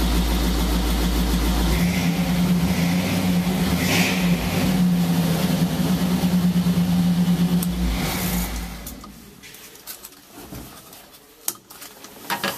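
Ford flathead V8 of a 1941 Ford fire truck idling steadily, then shut off about nine seconds in. A few sharp clicks follow near the end.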